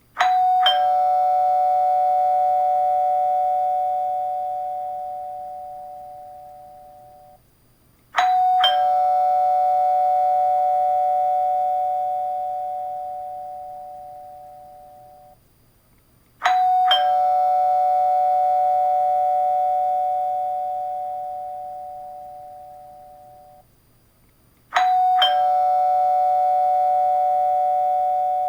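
Two-note doorbell chime going ding-dong four times, about eight seconds apart: a higher tone struck, then a lower one half a second later, both ringing out and fading slowly.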